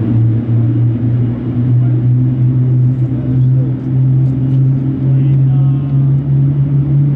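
GE90-115B turbofan of a Boeing 777-300ER spooling up during engine start: a steady low hum with a strong tone that slowly rises in pitch.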